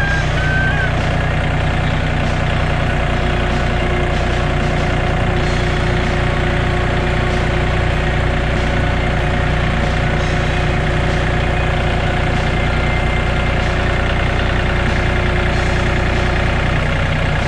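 Farm tractor engine running steadily at an even speed.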